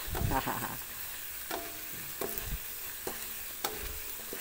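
Freshly cut potato fries deep-frying in hot oil in a metal wok, with a steady sizzle. A metal spatula stirs them, knocking against the wok about five times with short ringing clinks.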